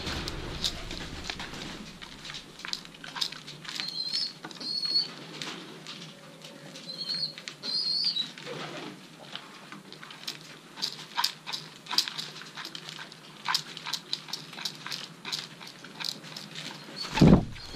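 Racing pigeons moving about: scattered sharp taps and pattering with brief wing flutters, and a few short high squeaky chirps. A loud low thump comes near the end.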